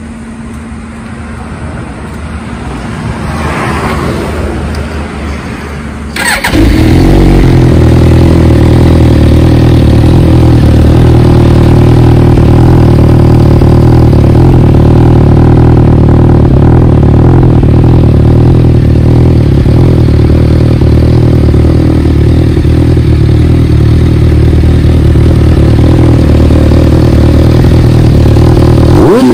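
Suzuki GSX-S1000's inline-four engine through an Arrow Pro Race titanium slip-on silencer: after a quieter first few seconds it comes in suddenly about six seconds in, starting up, then idles loud and steady with no revving.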